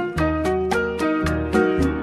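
Instrumental break of a Colombian popular dance song (chucuchucu), with no singing: bass notes, held melody tones and a steady percussion beat of about four to five strikes a second.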